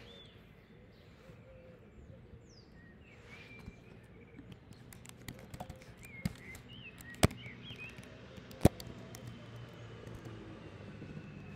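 Scattered sharp clicks from a computer keyboard and mouse, the three loudest coming singly about six, seven and nine seconds in, over faint background noise with a few short high chirps.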